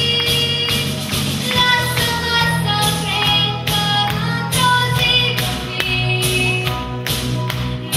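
A young girl singing into a microphone over a recorded pop backing track with a steady beat, amplified through loudspeakers.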